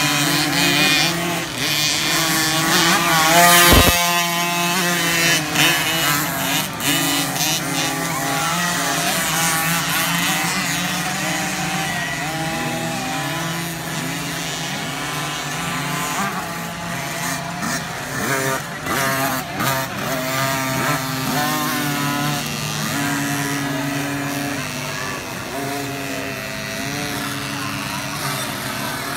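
Several 50cc two-stroke motocross bikes racing, their engines revving up and down in overlapping pitches as they accelerate and shift. The loudest stretch, a bike close by, comes about three to four seconds in, ending in a sharp knock.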